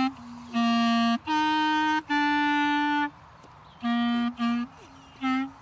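Clarinet playing a slow tune of long held notes, then after a short pause a few shorter notes.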